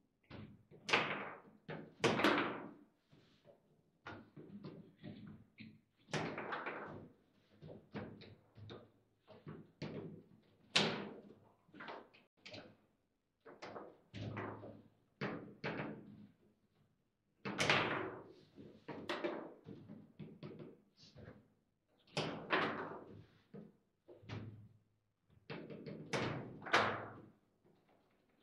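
Table football (foosball) play: the ball and rod-mounted figures clacking and the rods knocking against the table, in irregular sharp knocks with a few much louder bangs from hard shots.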